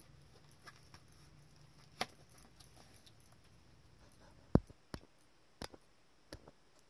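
A few faint clicks and taps from objects being handled close to the microphone, the sharpest about four and a half seconds in, over a low steady hum that fades out near the end.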